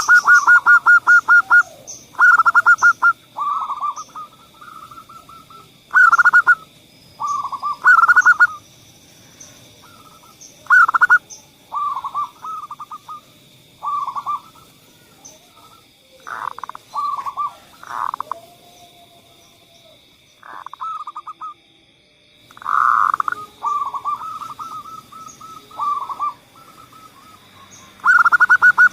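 Zebra doves (perkutut) calling over and over in bursts of rapid, trilling coos. Some phrases are loud and others softer, as from several birds. A faint steady high-pitched tone runs behind them.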